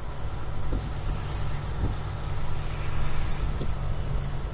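Semi truck's diesel engine running with a steady low rumble and hum, heard from inside the cab as the truck rolls forward at low speed, with a few faint clicks.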